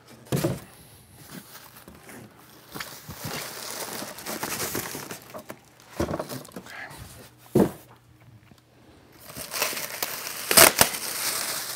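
Plastic bag wrapping crinkling and styrofoam packing blocks being handled, with a few sharp knocks as the blocks are lifted off and set down.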